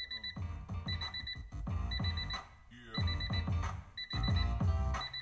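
Royalty-free music with a steady drum beat playing through a Honda NSX's car stereo speakers on a test run, the new replacement speakers all working. A short burst of rapid high beeps comes about once a second over it.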